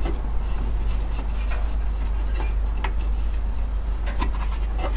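Scattered small clicks and taps of fingers working a cut rubber grommet around wires on a valve radio chassis, over a steady low hum.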